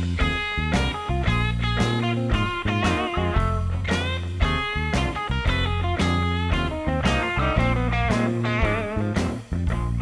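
Background rock music led by electric guitar with bent, wavering notes over a steady bass line.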